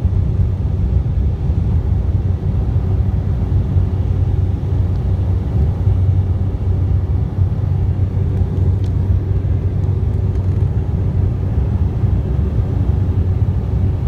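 Airliner jet engines at climb-out thrust just after takeoff, heard from inside the cabin: a loud, steady low rumble with a constant hum in it.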